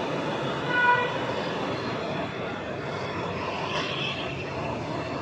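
A steady rushing roar, with a brief pitched tone about a second in.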